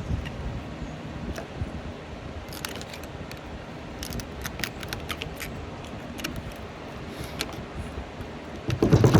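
Screwdriver prying at the glued, layered core of a transformer to wedge out a loosened chunk: scattered light metallic clicks and scrapes. Near the end a loud rushing noise starts.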